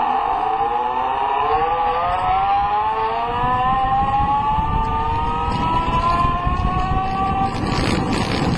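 Home-built electric longboard's electric drive motor whining, its pitch rising steadily as the board speeds up, over the rumble of the wheels rolling on asphalt.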